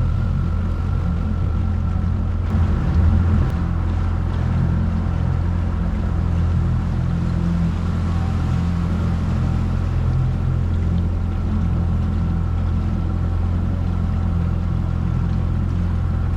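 Small four-stroke outboard motor (15 HP Mercury) running steadily at cruising speed while the skiff is underway, with a brief louder surge about three seconds in.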